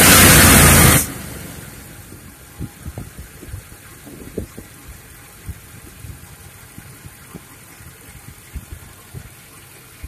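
1993 Jeep Grand Cherokee engine idling, heard faintly with irregular low knocks. It follows a loud rush of noise that cuts off suddenly about a second in.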